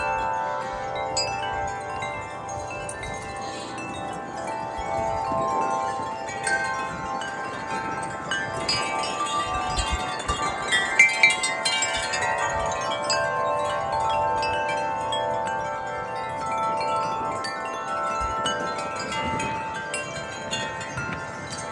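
Wind chimes ringing in the wind, many overlapping struck tones ringing on and blending together. The strikes are busiest and loudest about halfway through.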